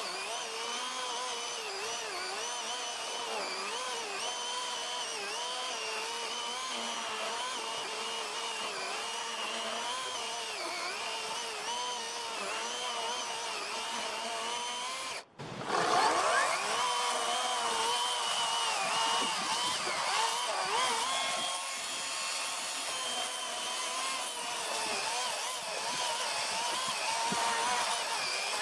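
Greenworks Pro 60V brushless cordless chainsaw with an 18-inch bar cutting wood. Its electric motor whines steadily, the pitch dipping and recovering again and again as the chain loads in the cut. After a brief break about halfway through, it spins up with a rising whine and cuts on.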